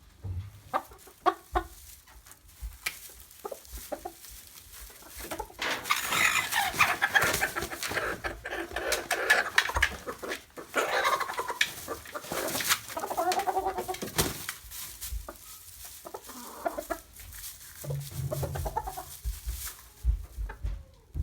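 Chickens clucking, with a few sharp taps in the first seconds, then a busy, louder run of calls in the middle that thins out to occasional clucks near the end.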